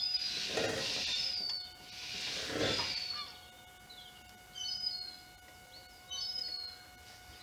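Small birds chirping in short falling notes, with a faint steady hum underneath. In the first three seconds there are three swelling rushes of noise, about two seconds apart.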